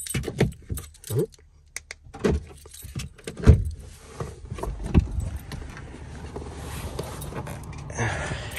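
Keys jangling and clattering through the first few seconds, then a car engine running steadily.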